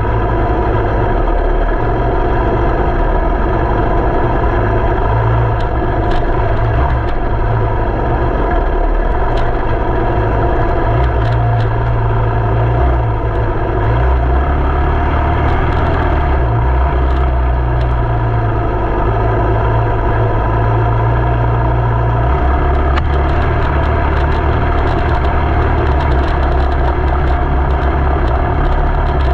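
A motor vehicle's engine running steadily, with a heavy low rumble.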